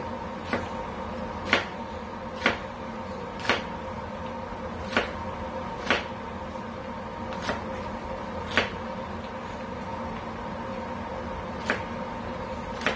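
A chef's knife slicing green onions on a plastic cutting board: about ten single sharp knocks of the blade on the board, roughly one a second at an uneven pace, over a steady background hum.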